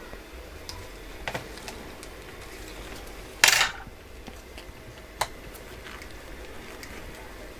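Small metal tools and parts clicking and clinking on a workbench during phone repair, with one louder clatter about three and a half seconds in.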